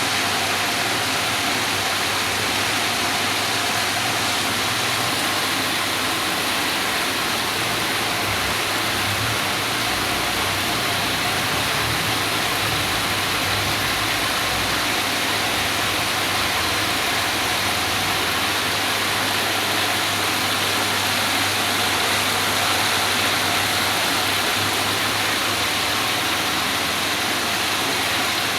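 Water fountain running: a steady, continuous rush of falling and splashing water, with a low steady hum underneath.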